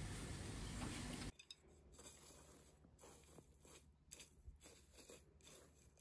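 A steady hiss for about the first second, then cut off suddenly. After it, dried herb-tea leaves crackle and rustle in short, crisp, irregular crunches as wooden chopsticks stir and spread them.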